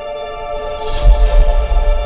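Dark background music of sustained held tones, with a loud, deep rumble swelling in about a second in.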